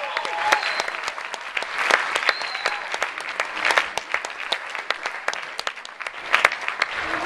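Audience applauding: many hands clapping at once, with scattered louder claps.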